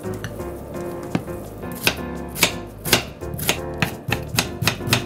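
Chef's knife chopping red cabbage on a cutting board. The strokes start about two seconds in at roughly two a second and quicken near the end.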